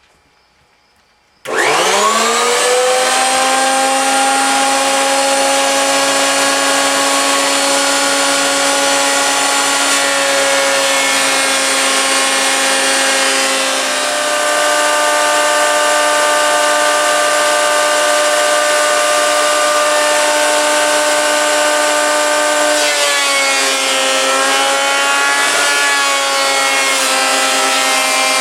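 Jet 10-inch combination planer/jointer switched on about a second and a half in: a whine that rises quickly as the motor and cutterhead spin up, then runs loud and steady. Its pitch drops slightly about halfway through and wavers briefly near the end.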